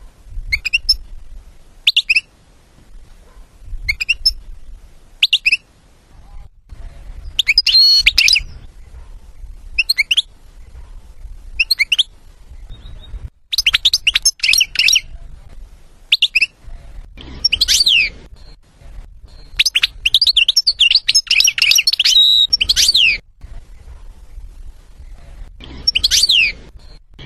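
European goldfinch singing: short high chirps every second or two at first, then longer rapid twittering song phrases, the longest about three seconds, over a faint low background rumble.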